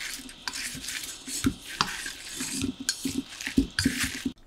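Wooden chopsticks tossing pieces of toasted thick fried tofu (atsuage) in a dressing in a stainless steel bowl: irregular clicks of the chopsticks against the metal, with soft scraping. It stops abruptly near the end.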